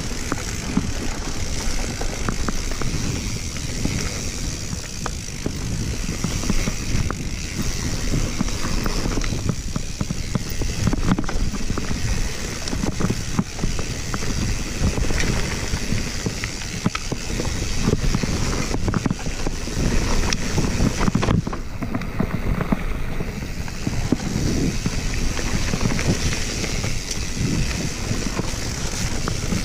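Mountain bike riding fast down a dirt forest trail: a steady noise of knobby tyres and wind, with frequent rattles and knocks from the bike jolting over roots and rocks.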